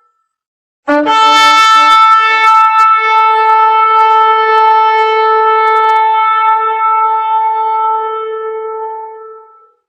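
A big trumpet blown in one long held note: it starts abruptly about a second in, stays at one steady pitch for about eight seconds, and fades away near the end.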